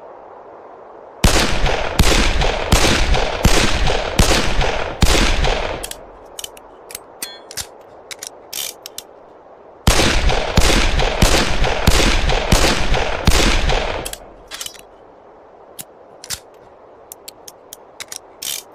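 Colt 1861 Navy cap-and-ball revolver firing two strings of about six shots each, roughly one shot every 0.7 seconds, each shot ringing on. Between the strings and after the second come scattered quieter sharp clicks.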